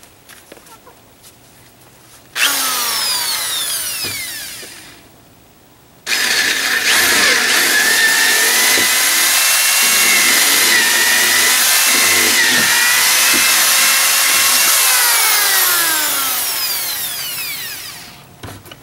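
Electric drill boring holes through a boat's transom: a short run starting about two seconds in that winds down, then a long steady run from about six seconds in that slows and winds down near the end.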